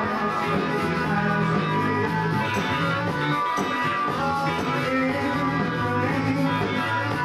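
Live band playing, with guitars prominent, picked up by a video camera's built-in microphone.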